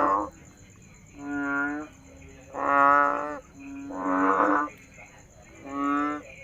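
A frog giving a series of deep, moo-like calls, each well under a second long, repeated about every second and a half: four full calls, with the tail of another at the very start.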